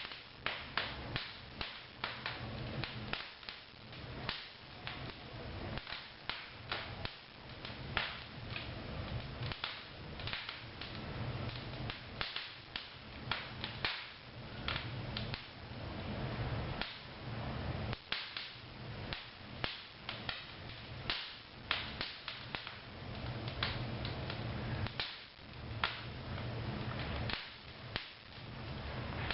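Wood fire burning in a newly built corner fireplace: irregular sharp pops and snaps, several a second, over a low steady rumble.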